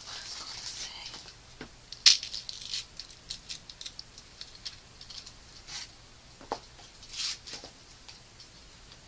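Crinkling of a plastic snack wrapper and scattered clicks and taps as the package is handled, with one sharp snap about two seconds in and another short crinkle near the end.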